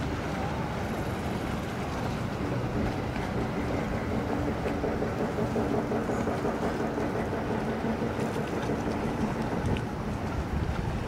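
Steady low engine hum over constant outdoor background noise, with no clear rise, fall or break.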